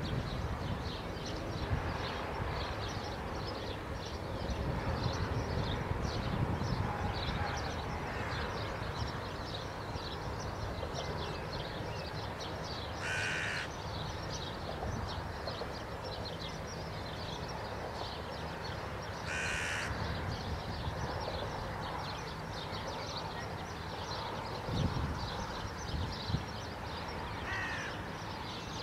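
A crow cawing twice, two short harsh calls about six seconds apart, over a steady background of faint birdsong and a low outdoor rumble.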